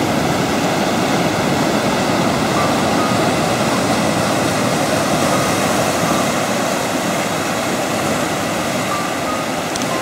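Surf washing over black boulders on a rocky shore: a steady, even rush of water, with a faint steady hum and a few short high chirps.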